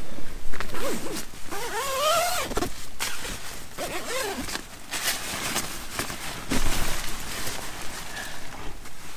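Nylon fabric of a Vango Banshee Pro 200 tent rustling, with short zip rasps, as the inner tent is fitted and its door handled. In the first half there are a few short vocal sounds that rise and fall in pitch.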